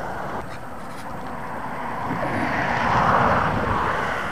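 A passing vehicle's noise, swelling to a peak about three seconds in and then fading.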